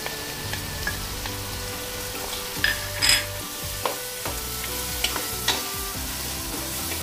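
Ground beef and tomato paste sizzling in a frying pan as a block of butter is stirred in with a wooden spatula. The spatula gives a few sharp taps and scrapes against the pan around the middle.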